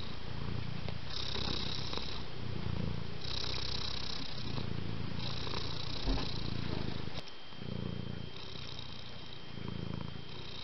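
Cat purring steadily in a regular cycle, a low rumble alternating with a higher, breathier phase every second or two, dropping slightly in level about seven seconds in.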